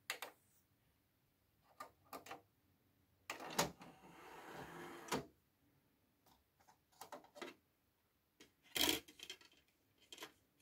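A button click on a Sony CMT-CP33MD micro hi-fi. A few seconds later the CD tray mechanism whirs for about two seconds as the tray drives out under its own power. Light clicks follow, then a louder clatter as the CD is lifted out of the tray and handled.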